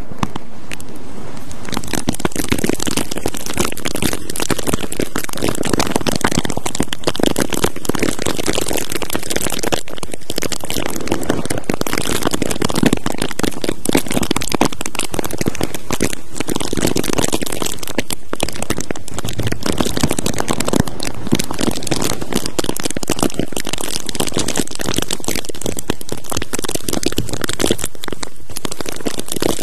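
Loud, dense crinkling and crackling rubbed right against the microphone for an ASMR 'ear check'. It is continuous, with gentle swells every few seconds.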